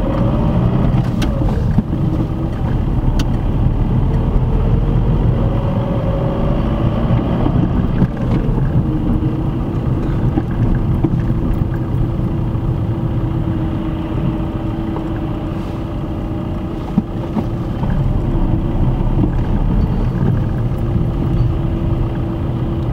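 Car engine and tyre noise heard from inside the cabin while driving in town traffic: a continuous rumble with a steady hum whose pitch dips briefly a couple of times as the speed changes.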